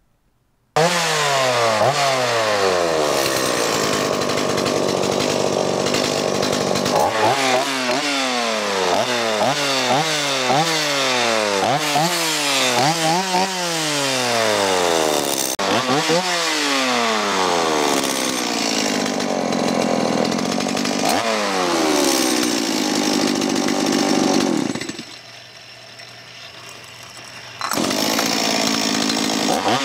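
Chainsaw engine revving up and down over and over, with a run of quick blips of the throttle in the middle. It drops lower for a couple of seconds near the end, then picks up again.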